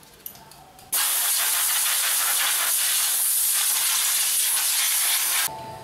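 Pressurised spray hissing in one steady blast of about four and a half seconds, starting about a second in and cutting off sharply, while a rusty parking brake pedal assembly is being cleaned.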